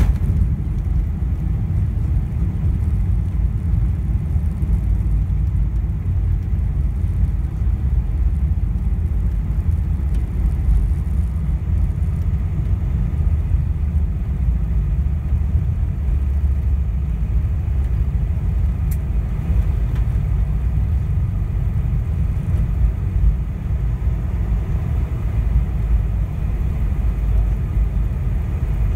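Steady low rumble in the cabin of a Boeing 747-400 rolling down the runway after touchdown, its ground spoilers raised.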